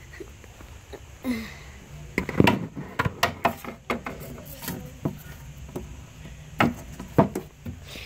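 Scattered sharp clicks and knocks of small plastic Littlest Pet Shop figures being picked up, moved and set down on a shelf, with bumps from handling the camera.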